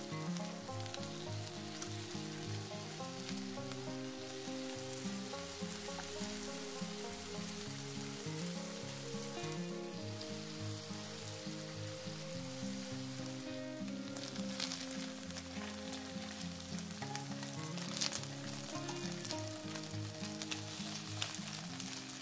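Marinated chicken thighs sizzling steadily on a hot ridged grill pan, with a few louder crackles about two-thirds of the way in. Background music plays underneath.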